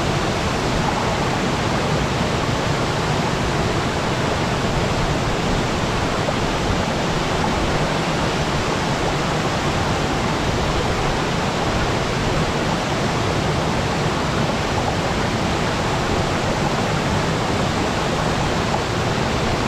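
Waterfall pouring steadily: an even, unbroken rush of falling water with a deep low rumble.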